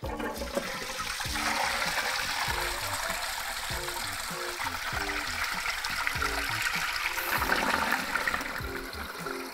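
A toilet cistern flushing: water rushes steadily into the pan while the Fluidmaster fill valve refills the cistern. The rush eases a little near the end.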